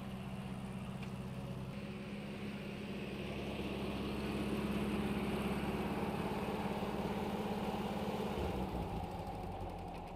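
Massey Ferguson tractor's diesel engine running steadily while pulling a rear-mounted rotary mower through grass, growing louder toward the middle as it comes close and easing off near the end.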